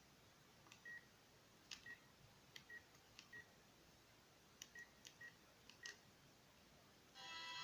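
Mobile phone keypad being pressed about seven times: each key gives a faint click, followed a moment later by a short high beep. A ringtone begins playing near the end.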